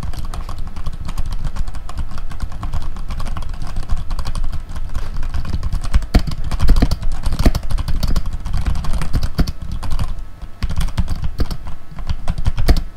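Rapid typing on a Vortex VX7 mechanical keyboard fitted with Outemu Red linear switches: a dense, uneven stream of key clacks as the keys bottom out and return.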